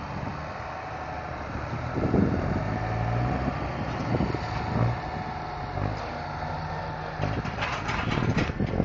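Diesel tractor engine running close by as the tractor drives over the silage, swelling louder and easing off. Near the end comes a short burst of rustling knocks.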